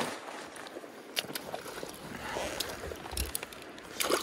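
Shallow, rocky creek water running steadily, with a few knocks and rustles of the landing net and waders being handled: a low thump a little after three seconds and clicks near the end.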